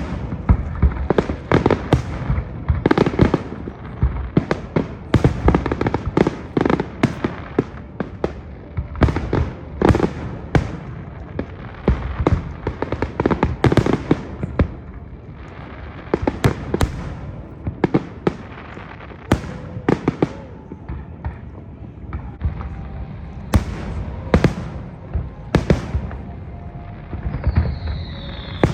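Aerial fireworks bursting: a rapid, irregular series of sharp bangs and crackles, some with a low rumbling tail.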